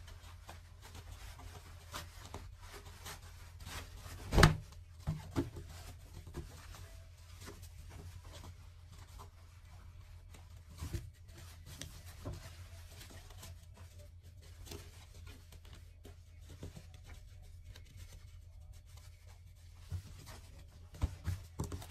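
Knit fabric being handled and turned right side out by hand, with soft rustling and scattered light taps of pins and fingers on the table. There is one louder knock about four seconds in and a few smaller ones later. A steady low hum runs underneath.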